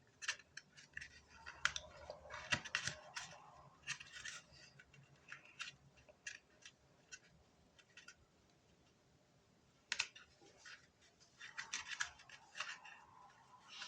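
Faint close-up hand work on a homemade mask: irregular light scratches, clicks and short snipping strokes in clusters, pausing for a couple of seconds before a sharp click about ten seconds in.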